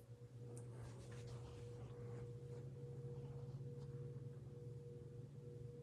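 Hampton Bay Littleton ceiling fan motor running on low speed: a faint, steady hum with a constant higher tone above it.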